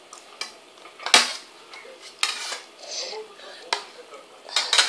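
Metal spoons clinking and scraping against stainless steel soup bowls, five or six separate clinks with the sharpest about a second in and a quick double clink near the end.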